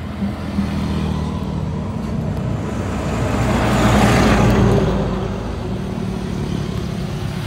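A motor vehicle passes on the road, its noise swelling to a peak about four seconds in and then fading, over a steady low engine hum.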